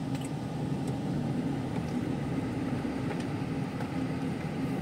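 Steady engine and road rumble of a moving vehicle, heard from inside it.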